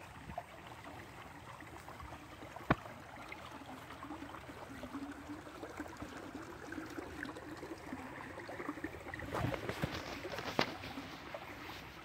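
Small shallow creek's water running over stones. There is a sharp click about three seconds in and a cluster of louder knocks near the end.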